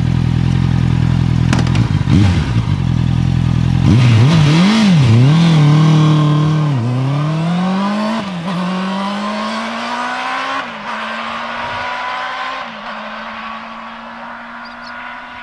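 Honda CB650R's inline-four engine idling, blipped a few times, then pulling away and accelerating through the gears. The pitch climbs and drops back at each of about three upshifts, fading as the bike rides off.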